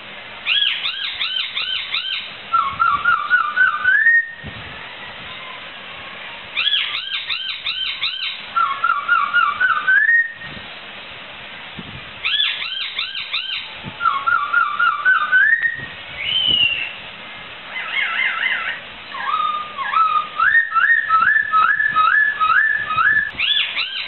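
Poksai (laughingthrush) singing: loud, clear whistled phrases of fast looping notes, each followed by a run of notes that climbs in pitch. The phrases repeat about every six seconds with short pauses between them. Near the end the bird sings a longer string of quick rising notes.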